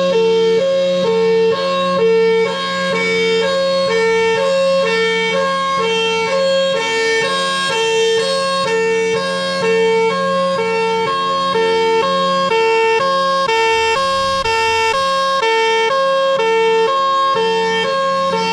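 Federal Signal Thunderbolt 1003 outdoor warning siren sounding a hi-lo signal: a loud two-tone wail that switches between a higher and a lower pitch about every half second, over a steady low drone.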